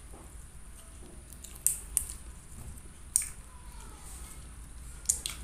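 Chewing a mouthful of rice and raw papaya leaves, with about five sharp, crisp clicks and smacks from the mouth; the loudest fall a little under two seconds in and about three seconds in.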